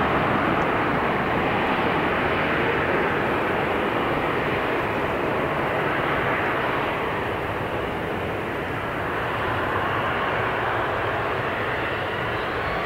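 Jet noise from a Boeing 777-300ER's two GE90 turbofans on final approach, heard from behind as the airliner descends away toward the runway. It is a steady rush and rumble, with a faint rising whine near the end.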